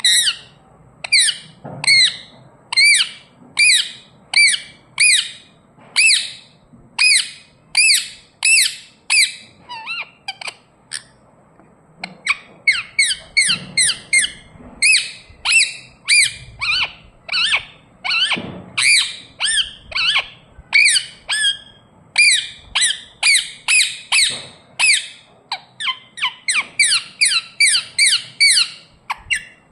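Indian ringneck parakeet giving a long series of short, sharp chirping calls, about one or two a second, with a brief pause about eleven seconds in and quicker runs later.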